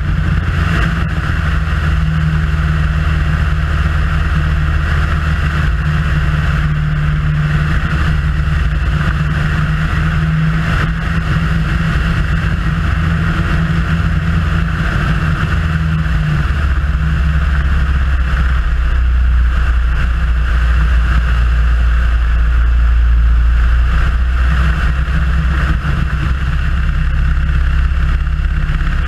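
Super Cub light aircraft in flight: the piston engine and propeller drone steadily with airflow rushing past, heard from the tail. The engine note shifts lower about halfway through as the plane manoeuvres.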